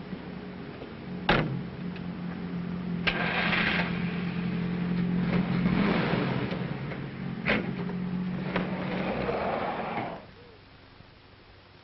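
Car engine running steadily, with four sharp knocks spread over the stretch, then cutting off abruptly about ten seconds in.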